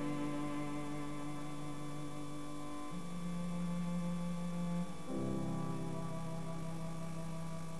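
Slow background music of long held low notes, changing pitch about three seconds in and again about five seconds in.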